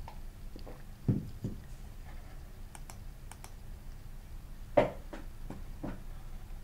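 A few scattered computer mouse clicks and light taps, the loudest about three-quarters of the way through, over a faint steady hum.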